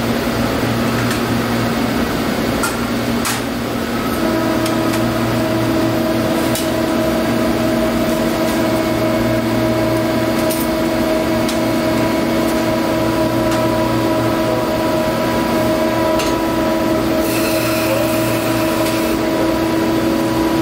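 Steady loud hum of cleanroom air handling and fume hood exhaust. A steady whine joins about four seconds in, with a few faint clicks and a brief hiss near the end.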